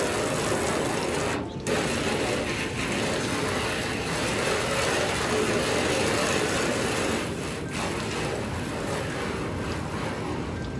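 Water spraying from a hose nozzle onto a truck's body: a steady hiss that cuts out briefly about a second and a half in, then runs on.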